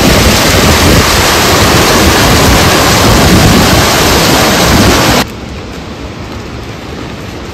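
Heavy rain, a loud dense steady hiss. About five seconds in it cuts off abruptly to lighter, quieter rainfall.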